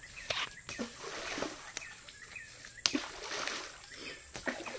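River water splashing and sloshing several times, with a few sharp knocks and short high chirps repeating in the background.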